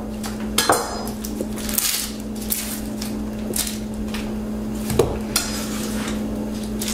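Dry onion skin being peeled off with a paring knife: papery crackling and rustling in short strokes, with a couple of sharp knocks of the knife on a wooden cutting board, one about five seconds in. A steady low hum runs underneath.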